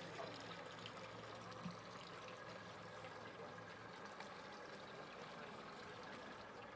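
Faint steady hum of an idling engine under an even hiss of running water.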